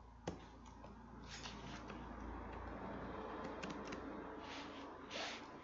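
A few faint, scattered computer mouse and keyboard clicks, the sharpest about a quarter second in, over a low background hiss.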